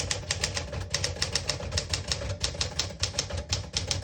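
1963 Smith-Corona Sterling manual portable typewriter being typed on at a steady pace, a quick run of sharp keystroke clacks several a second as the typebars strike the platen.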